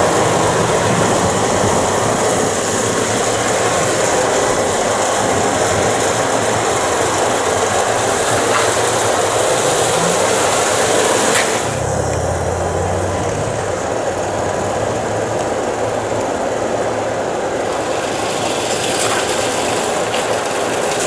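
Steady, loud engine and machinery noise, changing abruptly just over halfway through to a lower rumble.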